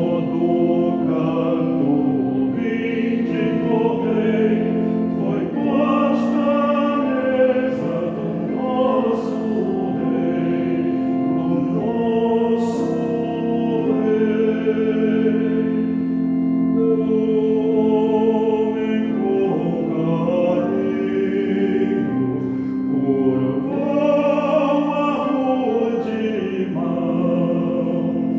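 A choir singing a Catholic hymn in Portuguese in slow, held notes over a steady sustained accompaniment.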